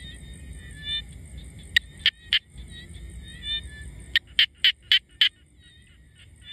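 Frog of the kind called nhái bầu calling with its throat sac puffed out: three short, sharp notes about two seconds in, then a quick run of five about four seconds in. Under it runs a steady high insect whine, with faint chirping.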